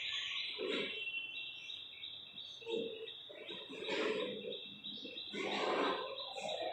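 Chalk scratching and tapping on a chalkboard in short irregular strokes as figures are written. Behind it, birds chirp in a steady run of high repeated notes.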